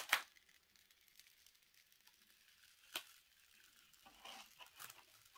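Plastic protective film being peeled slowly off a sticky diamond-painting canvas: faint crackling and rustling, with a short burst at the start, a single sharp tick about three seconds in, and more crinkling near the end.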